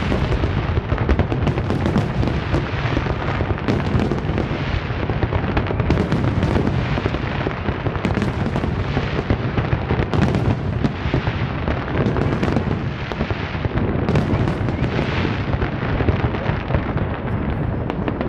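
Fireworks barrage: aerial shells bursting in rapid, overlapping succession, a continuous rumble of booms with sharp cracks on top and no pause.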